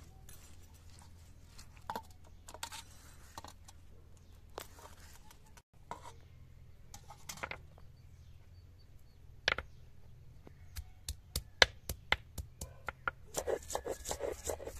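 Hand-held grinding stone knocking and scraping on a flat stone grinding slab as chopped food is crushed into a paste: scattered knocks at first, a quick run of sharp taps in the second half, then denser grinding near the end.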